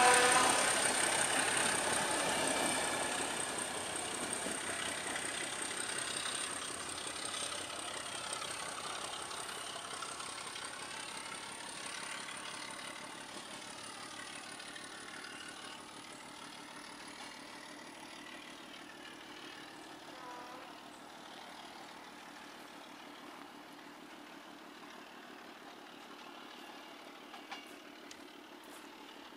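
Passenger train hauled by a ČD class 749 diesel locomotive rolling away, its coaches running over the rails and fading steadily into the distance. The train's horn cuts off just as it starts.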